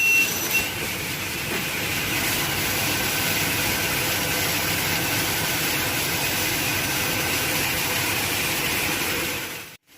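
Double-head aluminium cutting saw running with a steady, even whir and hiss. The sound cuts off abruptly near the end.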